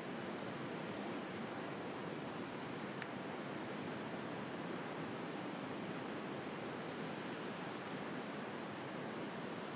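Steady wash of sea waves with a wood fire crackling faintly over it, one sharper pop about three seconds in.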